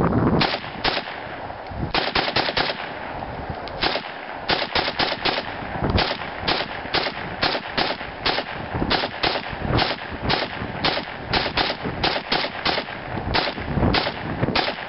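Kalashnikov rifle firing rapid strings of shots, a few a second, with brief pauses between strings.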